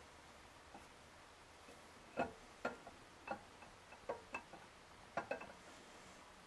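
Camshaft being slid out of a Gen 4 LS V8 engine block. About two seconds in, light metallic clicks and knocks begin, about ten of them at uneven spacing, as the lobes and journals bump the cam bearings while the cam is worked into line.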